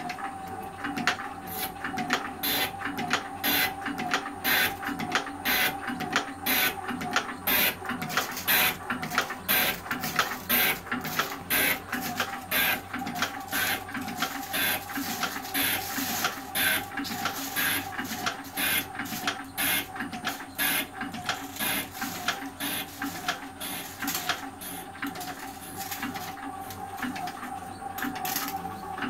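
Elliott 10M metal shaper running, its ram stroking back and forth about twice a second with a sharp clack or scrape on each stroke, over a steady whine from the drive. An old carbide tool is taking a cut of about a millimetre off a 6 mm ferrocerium rod.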